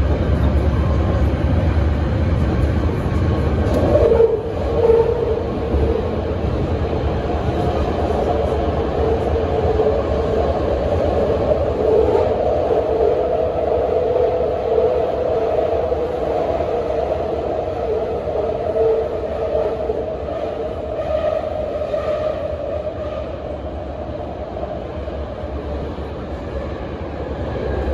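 Inside a BART Legacy A2 car at speed: a loud, steady rumble of wheels on rail. About four seconds in the sound changes as the train runs into the tunnel. The low rumble thins and a steady droning tone carries on, easing a little near the end.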